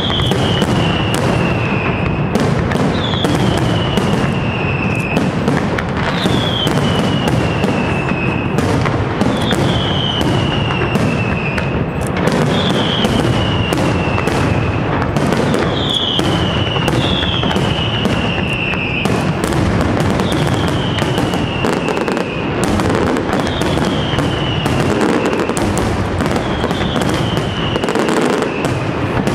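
Aerial fireworks display: a steady run of bangs and crackling from bursting shells, with a high, falling whistle about every three seconds.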